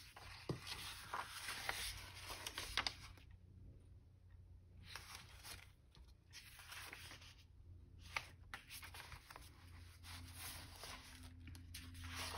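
Sheets of printed craft paper being handled: rustling and sliding on and off, with a few light ticks and a pause about three seconds in.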